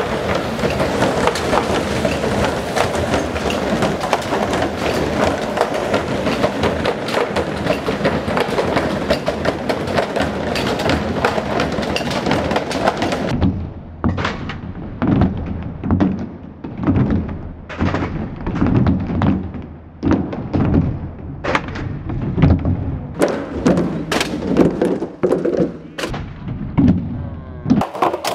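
A dense, noisy din full of rapid knocks. About halfway through it changes abruptly to separate, heavy thuds of drumsticks beating plastic barrels in an uneven rhythm.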